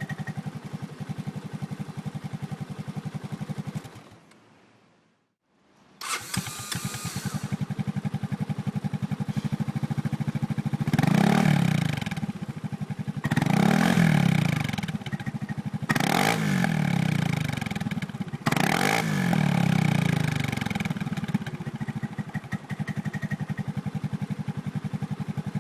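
Kymco X-Citing 300 scooter's single-cylinder engine through a G&G aftermarket muffler: idling, switched off about four seconds in, restarted a couple of seconds later, then revved four times with the throttle before settling back to idle.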